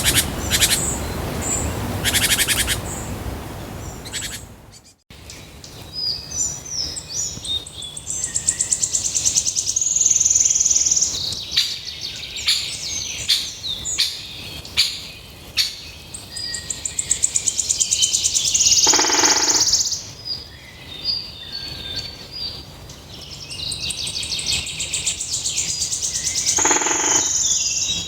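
Songbirds singing: high, rapid twittering and trilled phrases, with longer buzzy trills repeated several times. The sound drops out briefly about five seconds in, and a different song follows.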